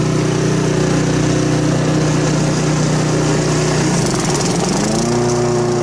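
Walk-behind petrol lawn mower engine running steadily. About four seconds in, its pitch drops and then climbs back, settling at a higher steady pitch.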